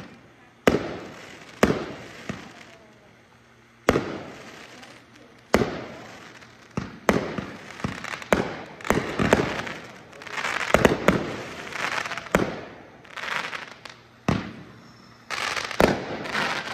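Aerial fireworks launching and bursting: a series of sharp bangs at irregular intervals, each with an echoing tail, and stretches of dense crackling in the middle and near the end.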